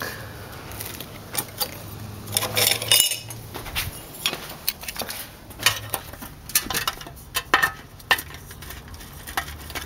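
Sheet-metal helmet parts of brass and stainless steel being handled, clinking and clattering against each other in a string of sharp metallic knocks, the densest cluster about two and a half seconds in, then scattered single clicks.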